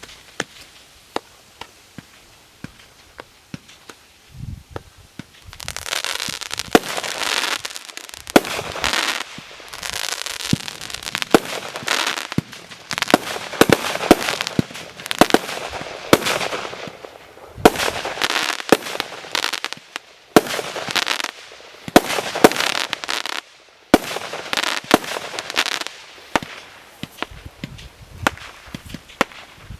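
'Surprise' SU 54 firework battery going off. A few sharp pops at first, then from about six seconds in, shot after shot of loud bangs and dense crackling in waves, with short breaks between volleys.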